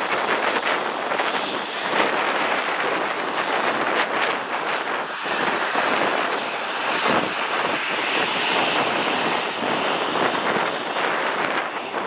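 Boeing 737-800's CFM56-7B jet engines running at taxi power as the airliner turns on the runway: a steady jet rush with a high whine that comes up more strongly about two-thirds of the way through, with wind buffeting the microphone.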